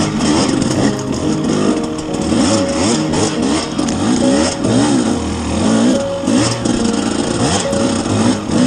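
Husqvarna TE300 two-stroke single-cylinder enduro engine, revving up and down over and over as the throttle is worked on a trail climb.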